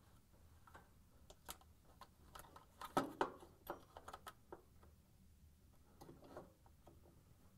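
Light plastic clicks and handling rattles as a white wire-harness plug is pushed into a washer motor control board's plastic housing, the loudest cluster about three seconds in.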